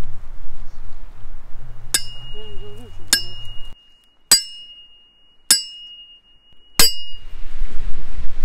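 Five sharp clinks about a second apart, each leaving a ringing high tone that carries on between them.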